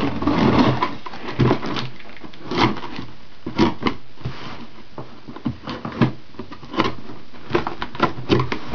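A mailed package being opened by hand: irregular rustling, scraping and knocking of the packaging, busiest in the first second.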